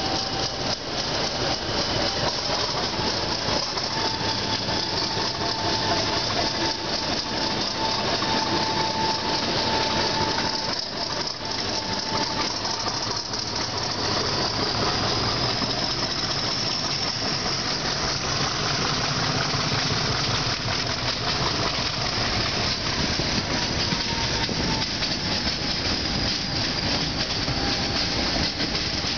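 Class 50 diesel locomotive's English Electric 16-cylinder engine working hard as it pulls a train away from a station, heard close behind through an open carriage window. A loud, steady drone with a whistling tone over the first ten seconds or so.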